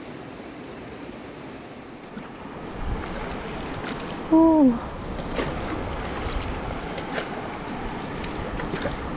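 Fast river water rushing steadily, with small slaps and splashes against the floating air mattress. About four seconds in comes one short, loud voice cry that falls in pitch.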